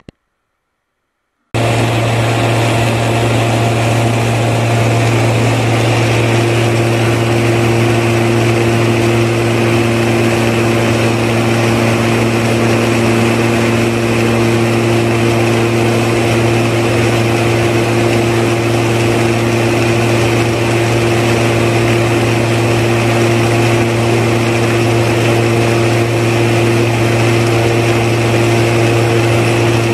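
Steady drone of a running motor with a constant low hum, starting abruptly about a second and a half in; a higher steady tone joins a few seconds later.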